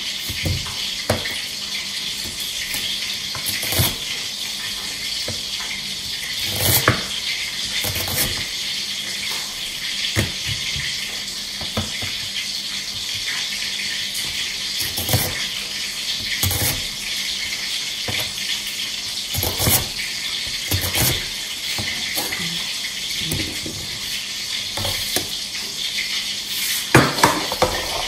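A cleaver chopping a large onion on a plastic cutting board: irregular knocks of the blade against the board every second or few seconds, with a quick cluster near the end. A steady hiss runs underneath.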